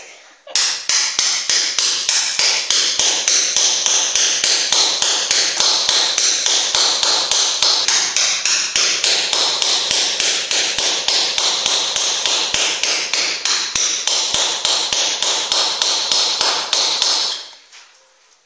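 Hand hammer striking a chisel held against a wall, a fast even run of sharp metal-on-metal blows, about four a second, chiselling a hole into the wall; the blows stop near the end.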